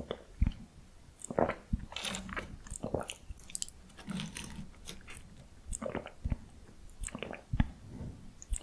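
Close-miked chewing and crunching of salty potato-stick snacks: irregular crisp bites and wet mouth clicks.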